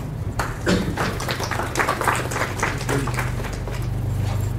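Audience applauding with many overlapping hand claps, dying away after about three and a half seconds.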